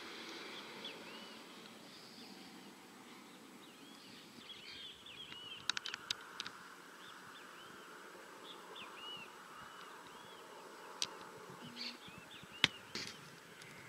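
Faint outdoor ambience with many small birds chirping over a low steady hiss. A quick cluster of sharp clicks comes about six seconds in, and two more single clicks come near the end.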